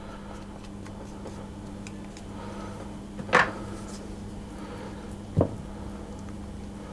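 Silicone spatula stirring thick cake batter in a ceramic mixing bowl, with two brief knocks of the spatula against the bowl, a sharper one about three seconds in and a duller one about two seconds later, over a steady low hum.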